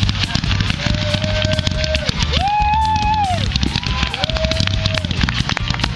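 Music with long held notes, each about a second, playing over the dense crackling and popping of aerial fireworks.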